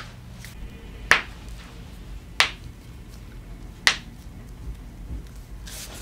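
Toe joints cracking as a chiropractor pulls and manipulates the toes of a bare foot: three sharp pops, about one every second and a half.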